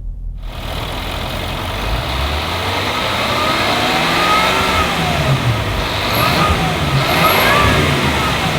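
Supercharged 5.0-litre V8 of a Land Rover Defender 110 under way, its pitch rising and falling several times as the revs change. A heavy rush of wind and road noise cuts in abruptly just after the start.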